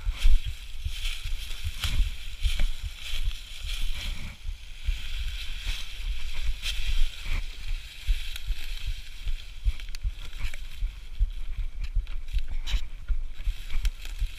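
Gusty wind buffeting the microphone, with scattered knocks and rattles, as from riding over rough ground.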